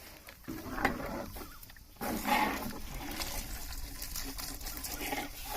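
Water being poured into a large cooking pot of fried vegetables and spices, with splashing and trickling that gets louder about two seconds in.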